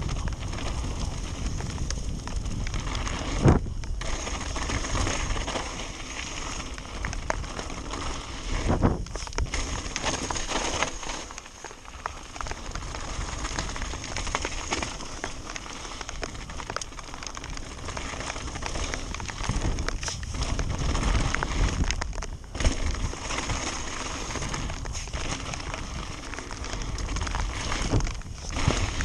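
Mountain bike descending a dirt and gravel trail: continuous rough tyre noise and rattle over the loose surface, with a few sharp knocks as the bike hits bumps, the loudest about three and a half seconds in.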